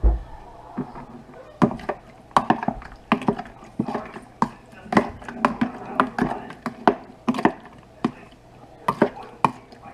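Cubes of raw fish being tossed by hand in a plastic bowl to work in the kilawin seasoning: irregular wet clicks and knocks against the bowl, about two a second. A dull thump at the very start.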